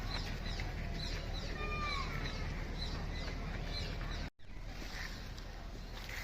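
Small birds chirping and whistling repeatedly over a steady low outdoor rumble; the sound drops out for a moment about four seconds in, and the chirps are sparser after it.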